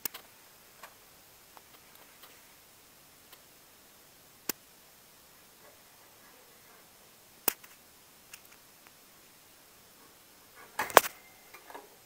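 Sharp isolated clicks and taps a few seconds apart, then a quick flurry of clicks and rattles at a wire birdcage about eleven seconds in, as a finger reaches in toward a goldfinch–canary hybrid.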